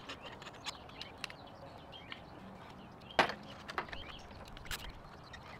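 Scattered small clicks and knocks of plastic and metal as an ignition coil pack is handled and pushed back into the cylinder head, with one sharp click about three seconds in.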